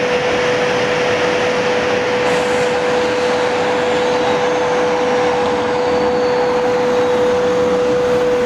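Steady machine hum with a rushing noise and one constant mid-pitched tone, unchanged in level throughout.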